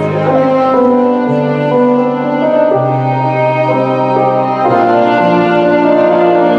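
Slow instrumental background music of long held notes, changing chords every second or two.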